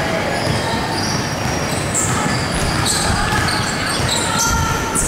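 Basketball game sounds on a hardwood court: a ball bouncing as it is dribbled, many short high sneaker squeaks, and players' voices, all echoing in a large hall.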